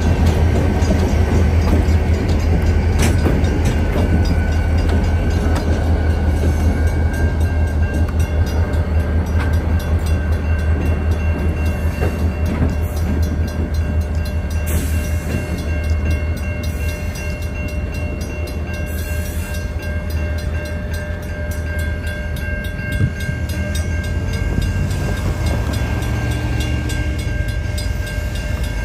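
CN EMD diesel locomotives, a GP40-2LW and a GP38-2W with 16-cylinder 645 engines, running with a steady low rumble, easing off slightly over the stretch. A faint steady high tone sits over it.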